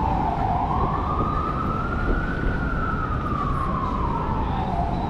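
Emergency vehicle siren in a slow wail: it climbs in pitch for about two seconds, falls back over the next two and a half, and starts to climb again near the end, over a low rumble of street traffic.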